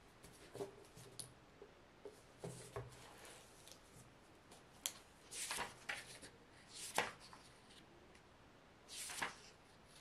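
Hardcover book opened by hand and its paper pages turned: light taps and soft paper rustles, with three louder page swishes in the second half.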